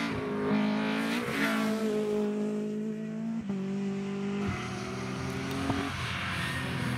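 Rally car engine revving hard out of a tight bend and accelerating away. Its pitch climbs and drops in steps with quick gear changes, and there is one sharp crack near the end.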